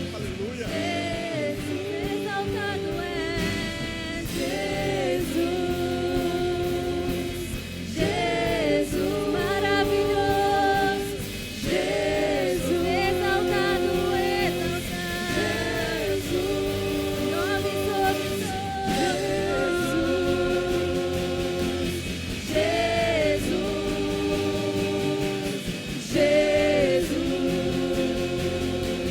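Christian worship song performed live: a group of voices singing sustained phrases together over instrumental accompaniment.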